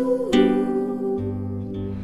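Background music of held notes, with a new note struck about a third of a second in.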